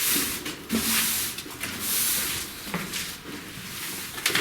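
Repeated scraping or rubbing strokes, about one a second, among light knocks and clicks, with a sharper knock near the end.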